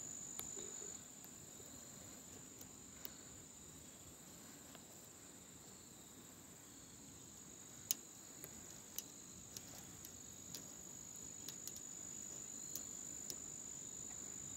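Faint, steady high chirring of crickets, with a few light clicks and ticks of thin wire being handled at the tip of a cane pole, the sharpest about eight seconds in.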